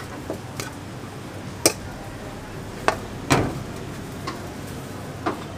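A metal spatula is clinking and knocking on a steel counter while chicken filling is spread over flatbreads. There are several sharp, irregular clicks; the loudest comes about a second and a half in, and a knock that rings a little comes past three seconds. Under them runs a steady low hum.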